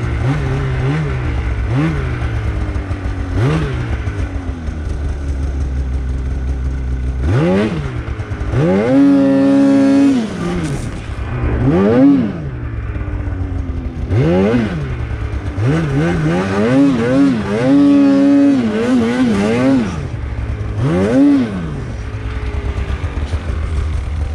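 Polaris Khaos 850 snowmobile's two-stroke 850 twin-cylinder engine revving in deep snow: quick short blips at first, then from about a third of the way in, repeated hard revs that climb high and fall back again and again.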